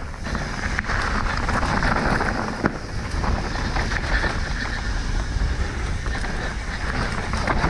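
Specialized Enduro mountain bike descending a rough downhill trail at speed: wind rushing over the microphone, with tyres on dirt and rock and the bike rattling in many small knocks.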